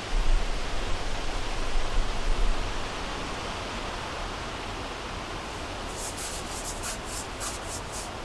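Steady outdoor hiss with wind rumbling on the microphone in the first couple of seconds. Near the end comes a quick run of faint high ticks, about five a second.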